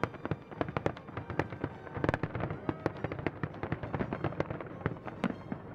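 Fireworks display going off: a dense, unbroken run of sharp bangs and crackling pops, several a second.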